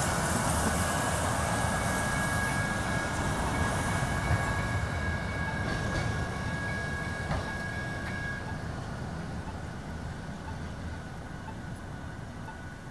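TriMet MAX light-rail train set, a rescue train towing a disabled Type 5 train, rolling away along the track: wheel rumble with a steady high whine, fading as it recedes.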